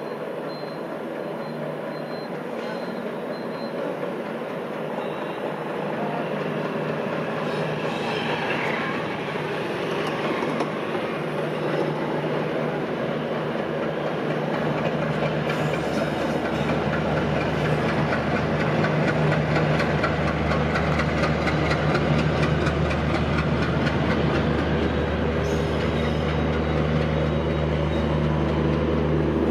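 WDG3A ALCo diesel locomotive's 16-cylinder engine pulling a passenger train away from a station, a steady low drone that grows louder as it draws near, over the rumble and clatter of the coaches on the rails. A brief falling squeal about eight seconds in.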